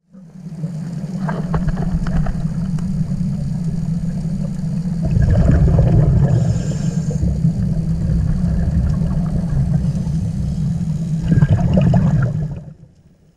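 Steady low underwater drone picked up through a camera housing, with two louder rushes of scuba exhalation bubbles from a regulator, about five seconds in and again about eleven seconds in.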